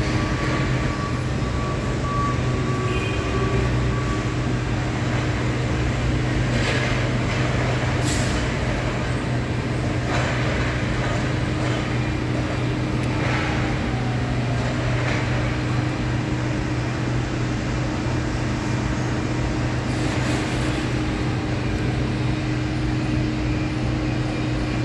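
Steady low hum of a docked cruise ship's machinery, a constant drone with two held tones, with a few brief noises scattered through it.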